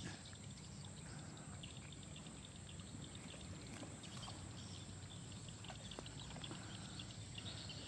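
Faint outdoor background by a fish pond: a low steady rumble with scattered faint high chirps and ticks.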